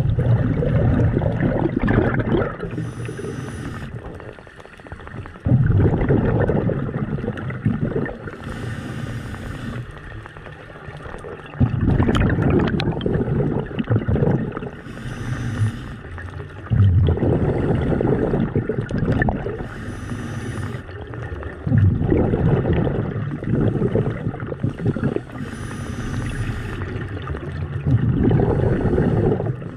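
Scuba diver breathing through a regulator underwater: a short hiss of air drawn through the demand valve, then a louder bubbling exhale, repeating about every six seconds.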